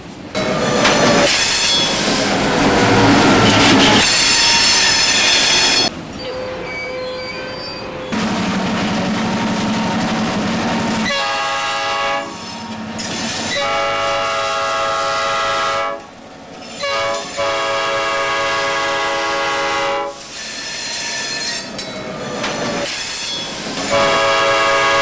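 Freight train rolling past with loud wheel and rail noise, then a diesel locomotive horn sounding several blasts: long ones with one short blast between, the last starting near the end.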